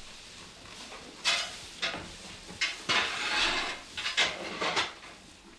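Hay rustling as cattle pull and eat it at the manger, in a run of short dry rustles about a second apart.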